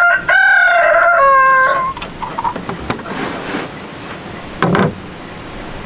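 A rooster crows once, a drawn-out cock-a-doodle-doo lasting about a second and a half. Near the end comes a short, lower call.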